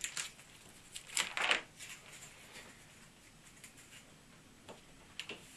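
Handling noise from the thin back cover of an LED ceiling panel being lifted, with light rustles, scrapes and clicks. The loudest comes about a second and a half in, and a smaller one near the end.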